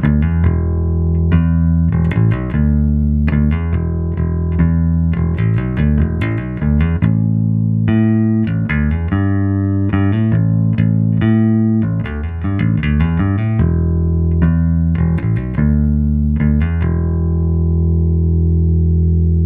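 A $65 kit-built four-string electric bass guitar, tone boosted, played through a Gallien-Krueger Backline 600 head and a Carvin 4x10 cabinet and picked up by a camera mic. It plays a riff of plucked notes, moves higher up the neck for a few seconds in the middle, then ends on one long held note that rings out.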